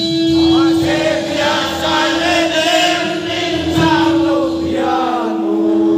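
Several voices singing together in a loud group, over a steady held tone.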